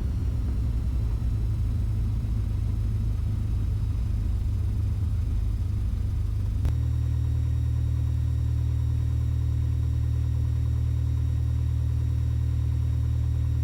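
Mooney M20E's four-cylinder Lycoming engine droning steadily in the cabin during the approach in gusty wind. About halfway through the drone changes abruptly from uneven and fluctuating to a smoother, steadier hum.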